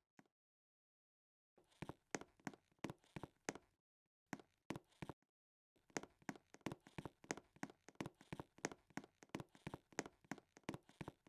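Ceiling fan running, with a faint rhythmic ticking of about four ticks a second over a low hum, in stretches that drop out to silence twice.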